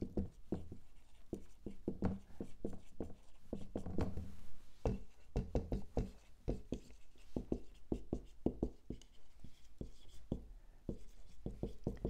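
Writing by hand on a lecture board: a quick, uneven run of taps and strokes, several a second.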